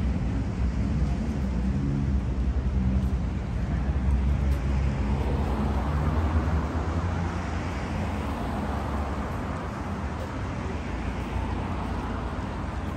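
Street traffic: a low engine rumble, then tyre noise that swells about five seconds in and slowly fades as a vehicle passes.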